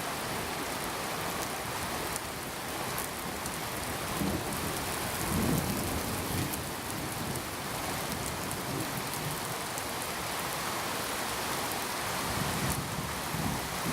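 Steady rain falling, with a low rumble of thunder swelling about five seconds in and again near the end.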